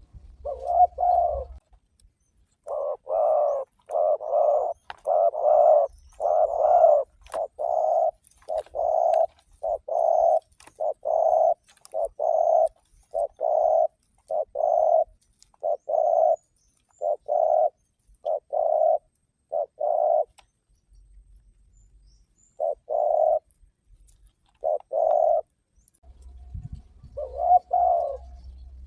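Spotted dove (tekukur) cooing: a long series of low coo notes in steady succession, a pause, then a few more coos near the end.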